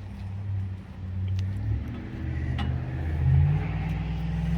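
Engine of a log-moving machine running, revving up about three seconds in and then holding the higher speed. A few faint clicks come over it.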